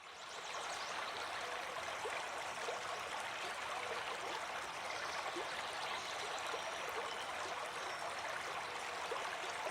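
Low-flow stream flowing, a steady rush of water that fades in at the start.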